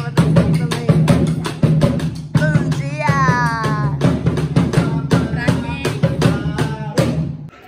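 Background pop music with a steady drum-kit beat, bass and a melody line, stopping just before the end.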